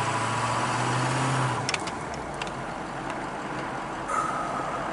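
A truck being driven, heard from inside the cab: a steady engine hum over road noise, the engine note dropping away about a second and a half in, with a few clicks, then a short high tone near the end.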